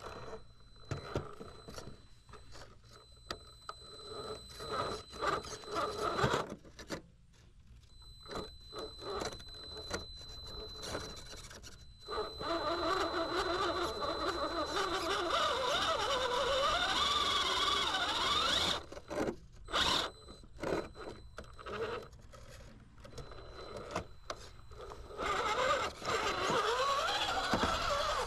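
Electric RC rock crawler's motor and geared drivetrain whining as it climbs over boulders, the pitch rising and falling with the throttle. Its tyres and chassis scrape and knock against the rock.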